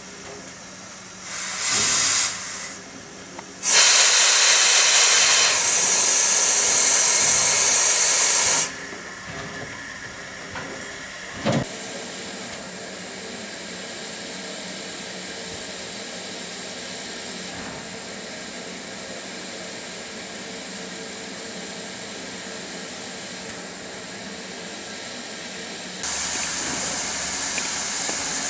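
SNCF 241P17 4-8-2 Mountain-type steam locomotive venting steam: a short hiss about a second and a half in, then a loud steady hiss lasting about five seconds. A softer continuous hiss follows, broken by one brief sharp sound near the middle, and a louder hiss starts again near the end.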